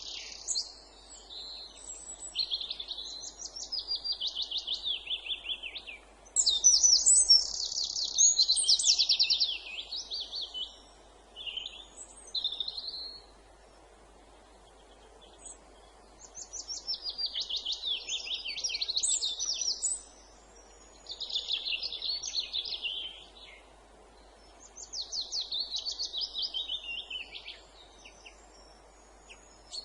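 Songbirds singing in woodland: high song phrases of rapid repeated notes, each lasting a couple of seconds, separated by short pauses, over a faint steady background hiss.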